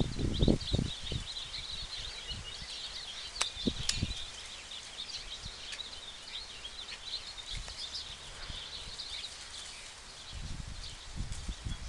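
Small birds chirping and twittering steadily in the background, with low rumbling bursts at the start and again near the end and a couple of sharp clicks about three and a half seconds in.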